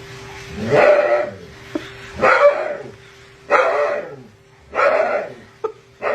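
A dog barking five times in drawn-out barks, about one every second and a quarter, each dropping in pitch.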